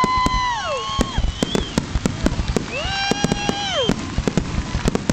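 Fireworks finale: a rapid, irregular run of shell bursts and crackling, with long high-pitched whoops from spectators, one fading near the start and another held for about a second midway.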